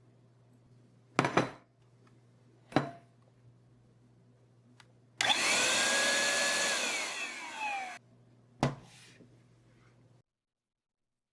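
A small handheld electric fan motor runs for about three seconds, whining, with its pitch falling as it winds down near the end. Sharp clicks come before and after it.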